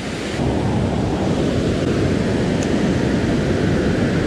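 Steady rush of a waterfall pouring into a pool, with whitewater rapids below it.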